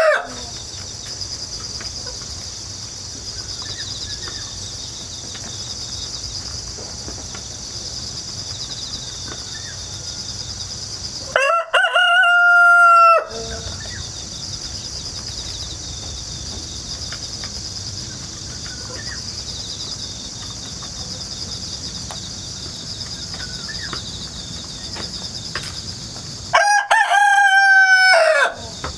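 Domestic rooster crowing twice, once near the middle and once near the end, each crow about two seconds long and ending on a long, slightly falling note. Between the crows grass insects chirp in a steady high chorus.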